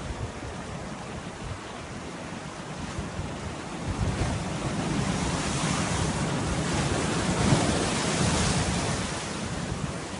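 Sea surf with wind buffeting the microphone; a wave rushes in about four seconds in, grows louder for a few seconds and eases off near the end.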